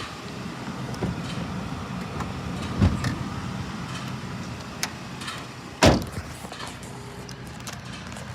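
Nissan Dayz Roox's 660 cc three-cylinder engine idling steadily, with two loud clunks, about three and six seconds in, and a few lighter clicks.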